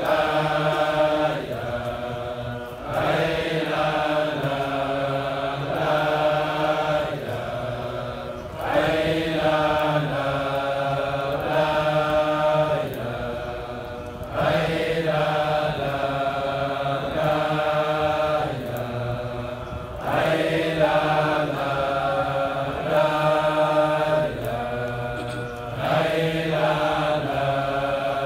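Many men's voices chanting a Sufi dhikr in unison, as at a Friday hadra. One long, slow phrase is repeated about every five to six seconds.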